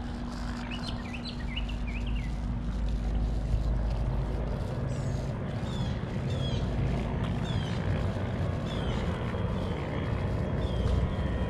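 Steady low rumble of distant engine noise, slowly growing louder, with a bird giving short falling chirps about once a second.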